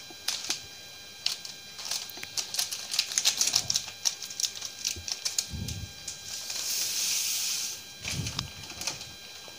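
Granulated sugar poured from a plastic packet into an empty plastic bucket: a rapid patter of fine ticks as the grains strike the plastic, then a steady high hiss for about a second as the sugar runs out in a stream, with a few scattered ticks after.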